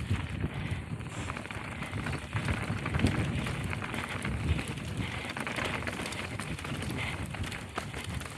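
Mountain bike rolling fast down a dirt singletrack: tyres crunching over the ground and the bike rattling with many small clicks, over a low rumble of wind on the microphone.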